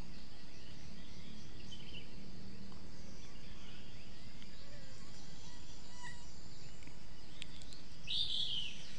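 Rural outdoor ambience: a steady high insect drone with scattered bird chirps, and one louder arching bird call about eight seconds in.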